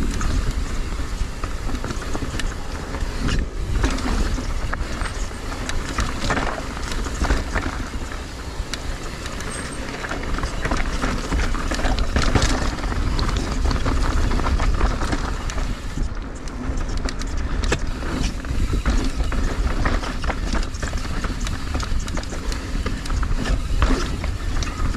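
Mountain bike descending a rocky trail: tyres rumbling over rock and dirt, with constant clattering knocks and rattles from the bike over the bumps, and wind rumbling on the action camera's microphone.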